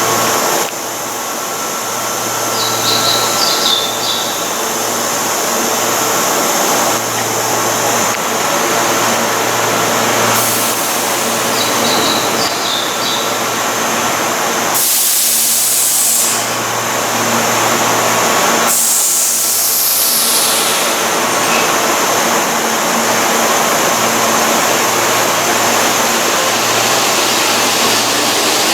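Keihan electric train at the station platform: steady running noise with a low hum, with two brief rushes of hissing noise around the middle.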